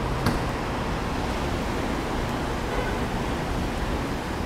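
Steady wash of traffic noise at a gas station pump while a car is being refuelled, with a single short click about a quarter second in.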